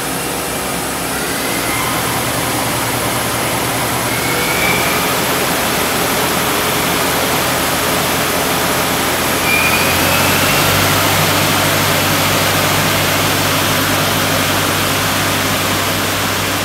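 Mori Seiki SL-35 CNC lathe spindle spinning its 10-inch three-jaw hydraulic chuck at speed: a loud, steady machine whir and hiss over a low motor hum. About ten seconds in, the low hum shifts higher in pitch.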